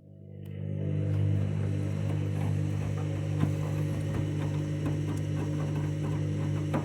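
Candy washing machine's drum motor starting up and running steadily, turning the full load during the main wash: a low hum that builds over about the first second, then holds.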